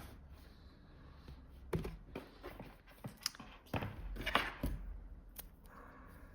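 A few short clicks and knocks, spread out and faint, as a charger and charging cable are handled and plugged in.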